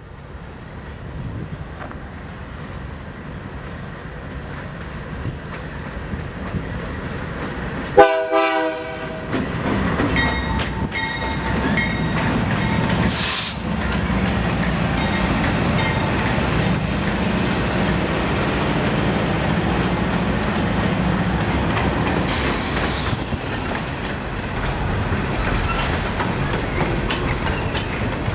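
BNSF freight train with GE C44-9W diesel locomotives approaching and passing. The rumble builds as it nears, a short horn blast sounds about eight seconds in, then the diesel engines go by loudly and the freight cars roll past with clicking wheels.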